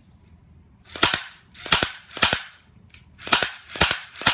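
H&K P30 electric blowback airsoft pistol firing six single shots at an uneven pace, starting about a second in. Each shot is a pretty loud double snap as the blowback slide cycles.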